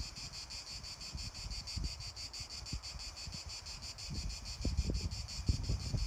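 Cicadas singing steadily, a high, rapidly pulsing buzz. Low irregular rumbles of wind on the microphone grow stronger toward the end.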